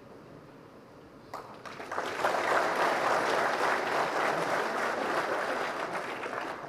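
Audience applauding: the clapping starts about a second in, swells quickly, holds steady, and dies away near the end.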